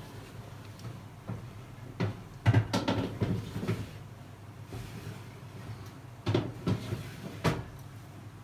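Baking tray knocking and clattering on the oven rack in two short bursts, about two seconds in and again about six seconds in, over a low steady hum.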